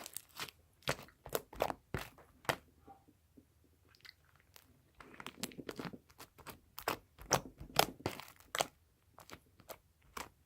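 Sticky slime being kneaded and stretched by hand, giving irregular wet clicks and small pops in two busy runs with a short lull between them.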